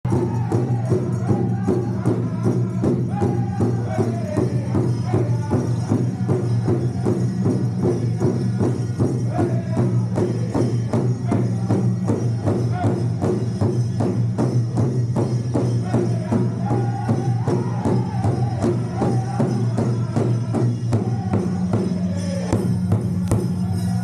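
Powwow drum group singing around a big drum: an even, steady drumbeat with voices whose melody rises and falls above it.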